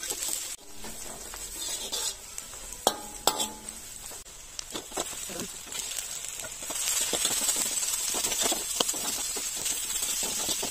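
Frying food sizzling in hot oil in a wok while a perforated steel spoon stirs and scrapes the pan, with two sharp clinks of the spoon about three seconds in. The sizzle gets louder about seven seconds in, after shredded lobster meat is added to the onions.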